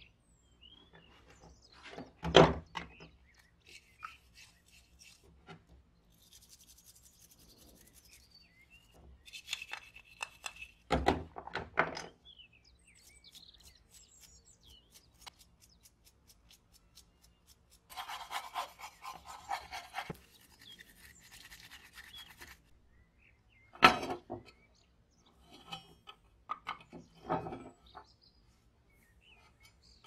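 A small brush scrubbing metal lighter parts in soapy water in a plastic tub, in a few stretches of bristly rubbing. Several short knocks sound as the parts are handled and set down.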